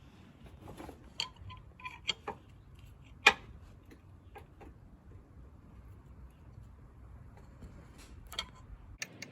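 Daihatsu Tanto engine running, a low steady rumble with irregular ticks and clicks over it. This is the abnormal noise that the owner traced to a failing water pump at nearly 150,000 km.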